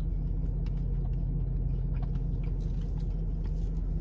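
Steady low rumble of a parked car's running engine heard from inside the cabin, with a few faint small clicks over it.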